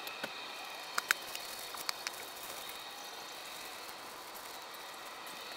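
Steady outdoor background hiss, with a few short, sharp clicks and taps about one to two seconds in.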